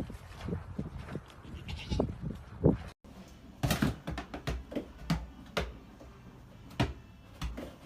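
A few short animal calls, bleat-like. About three seconds in the sound cuts abruptly, and then comes a string of sharp knocks and clatters.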